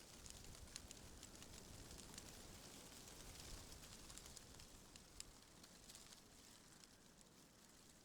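Faint rustling of tree leaves in the wind, with many small crisp leaf ticks over a low wind rumble, swelling slightly midway.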